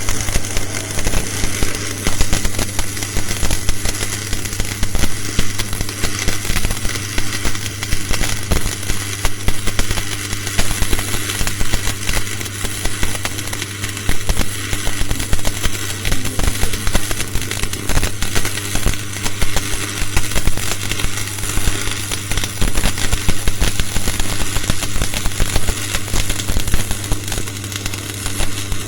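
Electric arc welding: the arc crackles and sputters steadily and without a break, with a steady low hum underneath.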